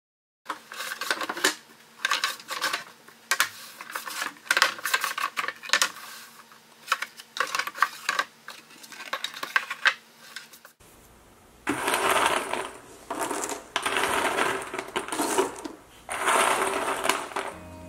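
Cardboard jigsaw puzzle pieces clicking and rattling: first a long run of separate clicks as the pieces are handled in their box, then, after a cut about eleven seconds in, several longer, dense rattling pours as the pieces are tipped out into a pile.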